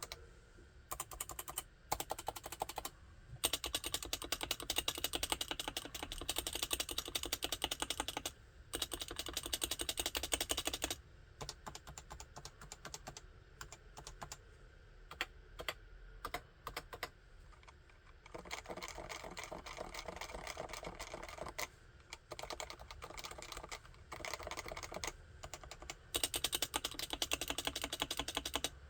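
Realforce 87UW tenkeyless keyboard with Topre electrostatic capacitive switches being typed on. Stretches of fast continuous typing alternate with slower, separate keystrokes.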